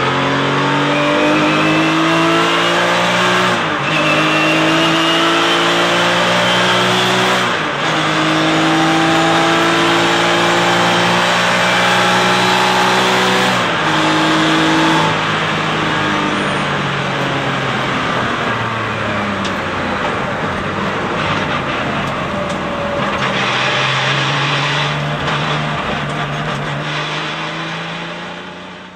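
Porsche 996 Cup car's flat-six heard from inside the cockpit at full throttle, climbing in pitch through the gears with three upshifts in the first half. The pitch then falls through downshifts under braking before the engine pulls again, and the sound fades out at the very end.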